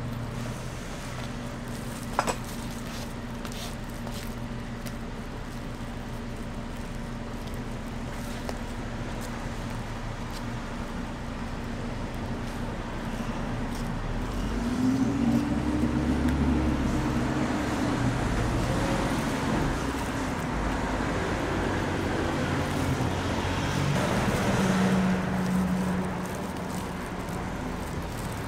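Street traffic: a steady low hum, then vehicle engines passing from about halfway through, with their pitch rising and falling.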